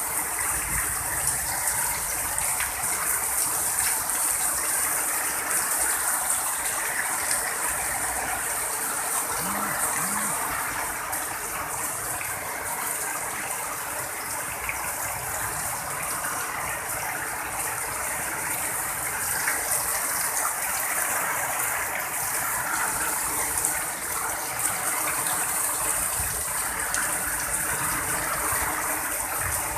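Heavy rain pouring steadily, a continuous hiss of falling water.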